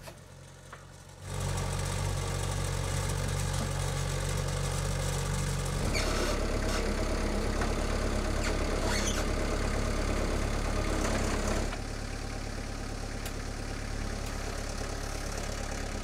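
Compact tracked loader's engine running steadily. It comes in suddenly about a second in, works harder for about six seconds in the middle while the log is handled, then settles back to a lower, steady run.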